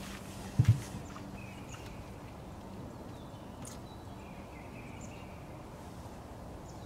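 Faint sucking of air through the end of a quarter-inch hose, in two short stretches, as vacuum is drawn by mouth on a secondary air switching valve to check that it holds vacuum. A soft thump about half a second in.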